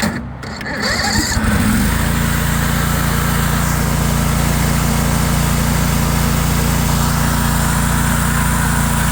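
Snapper Z Rider's 18 horsepower Briggs & Stratton Vanguard V-twin engine being started on choke: a short crank, then it catches about two seconds in and runs steadily.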